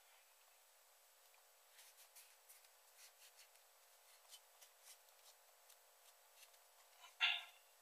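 Faint clicks and scrapes of plastic shaver housing parts being handled and fitted together, with one louder short plastic squeak near the end.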